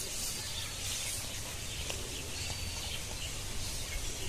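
Outdoor rural ambience: a few short bird whistles over a steady hiss and a low rumble.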